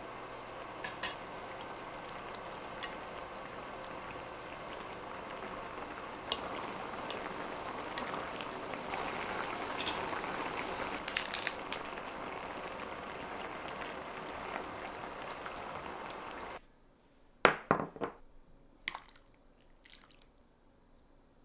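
A steady watery hiss with small crackles, a little louder from about six seconds in, that cuts off suddenly about 17 seconds in; a few sharp clinks or knocks follow.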